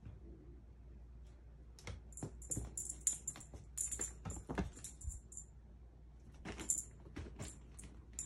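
A small jingle bell on a cat toy jingles in quick clusters as a kitten leaps and bats at it, mixed with light clicks and a few soft knocks. The jingling starts about two seconds in and comes again near the end.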